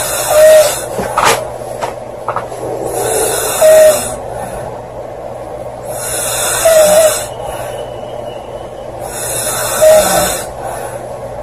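A girl snoring loudly: four breathy snores about three seconds apart, each with a short high whistle near its peak.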